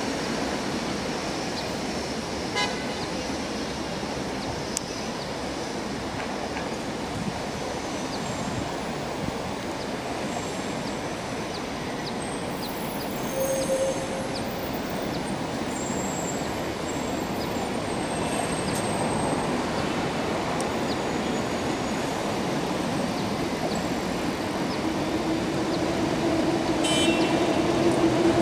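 Steady city traffic noise, with a short horn toot about halfway through. Over the last few seconds a steady hum grows louder as a CRH1E electric multiple unit approaches along the tracks.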